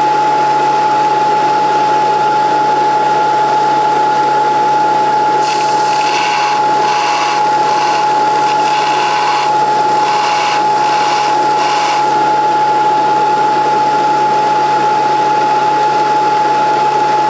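Vertical belt sander running with a steady whine, and from about five seconds in, a steel drill bit pressed against the abrasive belt in several short passes, each adding a harsh grinding hiss, as a new point is ground on the snapped bit.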